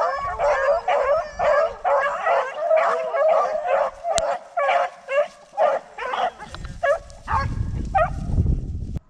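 Pack of rabbit hounds baying on a rabbit's trail: many overlapping bawls and barks, about three a second, that thin out over the last few seconds. A low rumble joins in near the end.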